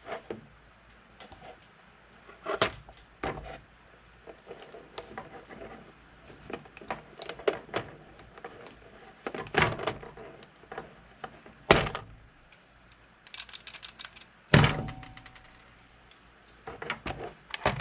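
Handling noises from riveting a plastic motorcycle airbox cover: scattered clicks, taps and rattles of the plastic, rivets and hand pop-rivet tool, with a sharper crack about 12 seconds in and a heavy thump about two and a half seconds later.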